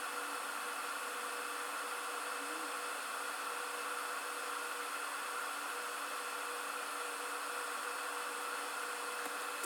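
Steady, even hiss with faint constant whining tones underneath, unchanging throughout.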